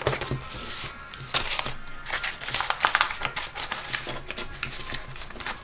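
Paper envelopes and banknotes rustling and crinkling as they are handled, with scattered light taps and clicks.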